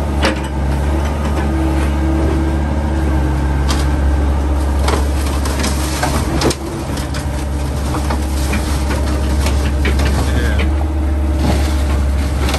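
Hyundai mini excavator's diesel engine running under load, a steady low drone with a higher whine that comes and goes, as the machine climbs onto a truck bed. Scattered metal clanks and knocks run through it, several of them sharp.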